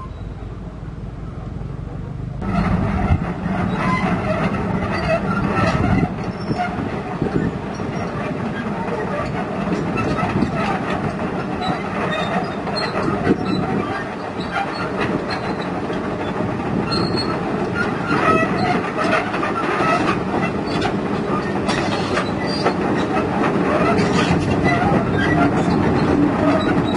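Komatsu PC200 crawler excavator travelling on its steel tracks: the track links clank and squeal over the diesel engine. It grows louder as it comes closer, with a step up about two and a half seconds in.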